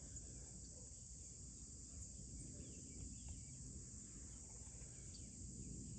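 Steady, high-pitched chorus of evening insects, shrilling without a break, over a faint low rumble of outdoor background noise.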